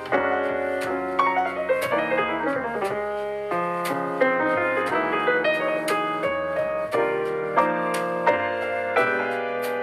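Background piano music, a continuous stream of notes and chords.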